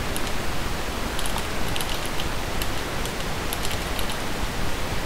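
Steady hiss with a few light computer-keyboard keystrokes, scattered in small clusters across the middle, as a line of code is typed.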